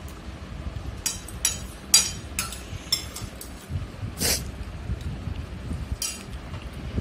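Metal spoon clinking and scraping on a dinner plate while someone eats: a handful of short, sharp clinks spread over several seconds, with one longer scrape about four seconds in.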